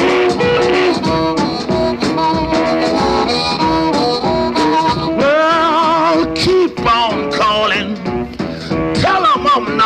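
Early-1950s electric blues recording: harmonica wailing over a repeating electric guitar riff, with wavering, bending notes in the middle and again near the end.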